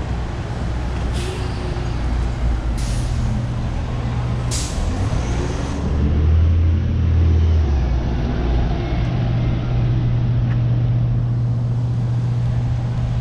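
A large road vehicle's engine running close by with a steady low drone, with three short hisses in the first five seconds.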